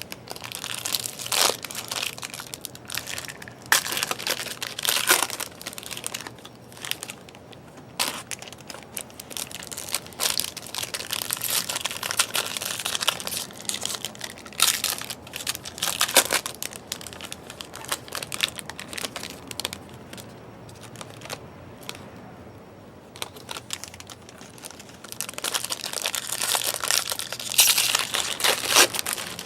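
Trading-card pack wrappers being torn open and crinkled, with cards handled, in irregular bursts of crackling that are busiest near the end.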